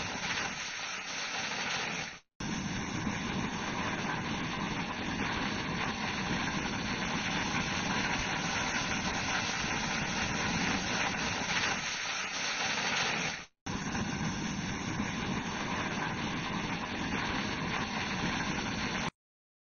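Matchstick model burning: a steady noise of the flames from the burning match heads and sticks, broken twice by a brief silent gap.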